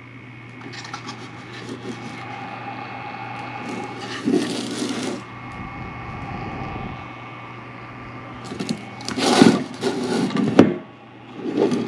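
Handling noise as a plastic fan housing and power bank are moved about on a countertop: rubbing and scraping, a couple of louder bumps, and one sharp click near the end. A faint steady hum runs underneath.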